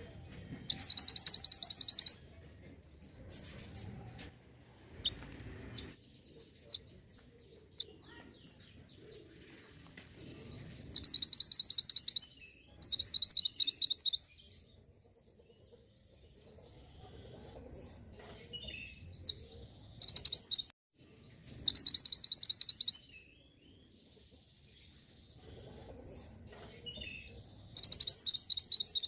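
Songbird calls from a lure recording meant to draw a response from mantenan birds. Six loud, high, fast trills of rapidly repeated notes, each a second or so long, come in irregular bouts. Fainter chirps sound between them.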